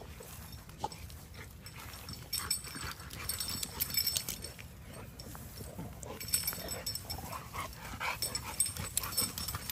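Metal of the dogs' heavy weighted collars clinking and jangling irregularly as several dogs run and play, with dog noises mixed in.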